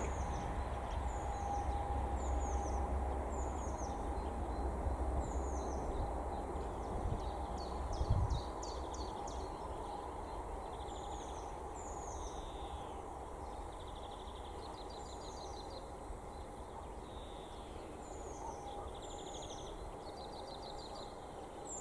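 Small birds chirping: a high, downward-sweeping chirp repeats about once a second, with buzzy trills in between. Under it runs a low rumble that fades over the first several seconds, with a faint steady hum and one dull thump about eight seconds in.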